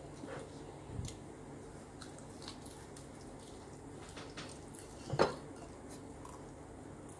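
Chopsticks and tableware at a meal: a few light clicks of chopsticks on plates and a rice bowl, with one louder knock about five seconds in.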